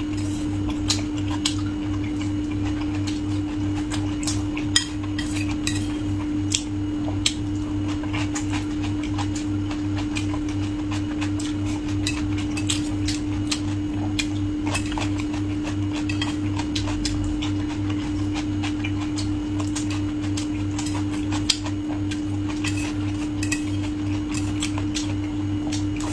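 Eating with utensils: scattered sharp clicks and clinks of cutlery against dishes, over a steady low hum.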